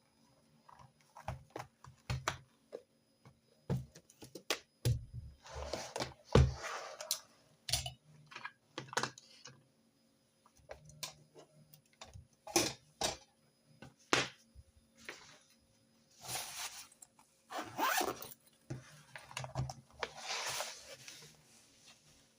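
Desk handling sounds of note-taking stationery: scattered sharp clicks and taps as pens and small items are picked up and set down, with several rustles of paper lasting about a second each.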